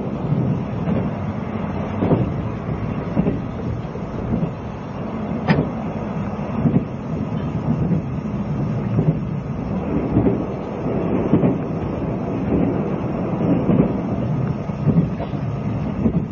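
Running noise inside a 20-series sleeper carriage on the move: a steady low rumble with irregular knocks and rattles from the wheels and car body, and one sharp click about five and a half seconds in.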